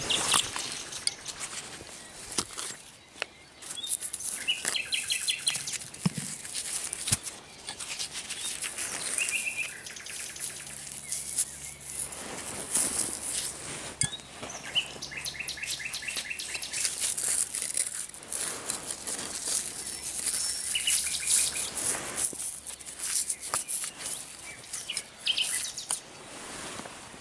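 Gloved hands rustling and scraping through loose soil and handling corroded metal finds close by. Over it, a common nightingale sings several short phrases of rapidly repeated notes.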